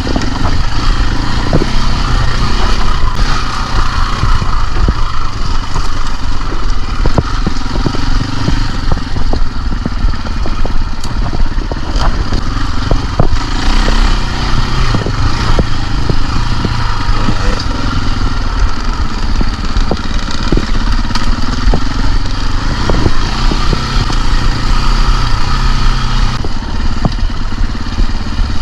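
KTM enduro dirt bike's engine running under load on a trail, its pitch rising and falling as the throttle opens and closes, with frequent sharp knocks and clatter.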